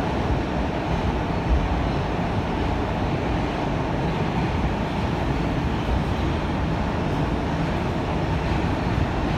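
Steady rumble and rush of an R160 subway car running at speed, wheels on rail, heard from inside the car in a tunnel. It stays even throughout, with no clicks, brake squeal or change in pitch.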